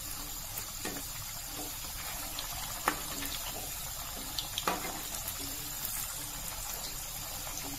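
Maggi-noodle Manchurian balls deep-frying in hot oil in a kadhai: a steady sizzle and bubble, with a few light clicks of a slotted spoon against the pan as the balls are turned.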